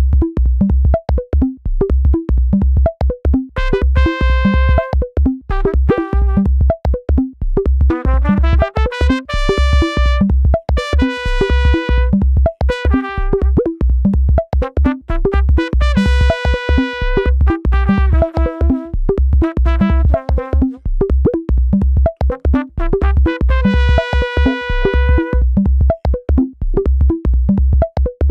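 Electronic synthesizer background music: a steady low beat under held keyboard-synth notes, with a rising sweep about eight seconds in.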